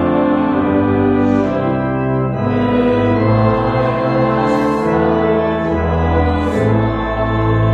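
Church organ playing a slow hymn in long, sustained chords, with voices singing along.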